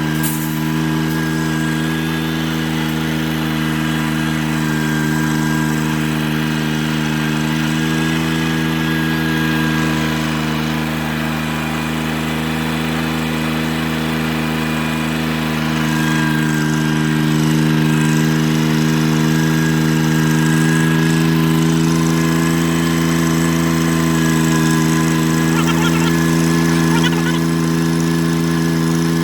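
An engine running steadily at a constant speed, with a slight rise in loudness about halfway through.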